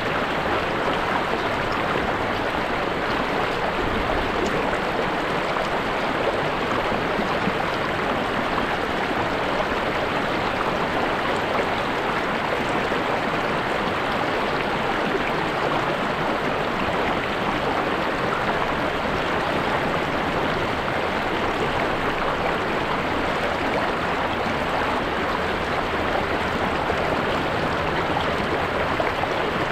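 River water running over rocks: a steady rushing and babbling.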